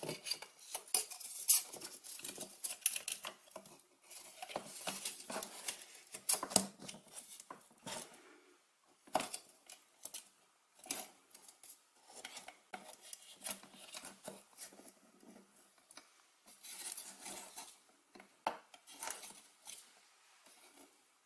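Close handling noises from fitting foam-board pieces, a wooden skewer and a plastic marker pen together: irregular light clicks, taps and rubbing rustles with short pauses, dying away near the end.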